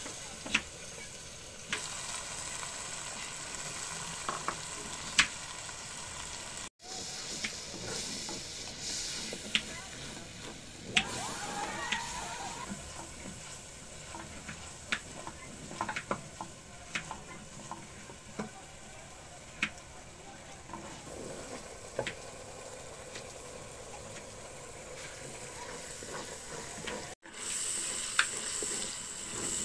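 Masala sizzling in a clay pot while being stirred with a spatula, the spatula knocking sharply against the pot now and then. The sound drops out for an instant twice.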